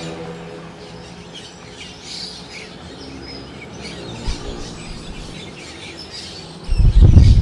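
Birds chirping during a lull in strong wind, over a faint steady low hum. Near the end a strong gust hits the microphone suddenly as a loud low rumble.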